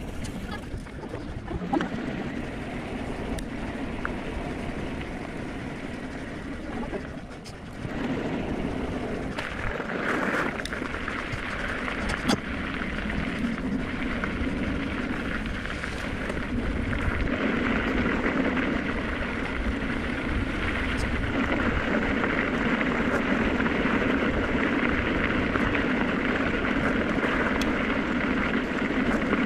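Riding noise of a Specialized Turbo Levo electric mountain bike: tyres rolling over pavement and then gravel, with a steady hum. The noise gets louder about a quarter of the way in and again past halfway, and there are a couple of sharp knocks from bumps.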